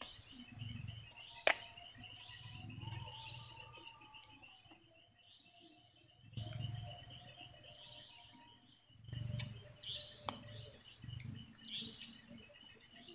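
Faint chorus of repeating chirps over a steady high trill, from small animals in riverside grass at dusk. Low rumbles come and go underneath, and one sharp click sounds about a second and a half in.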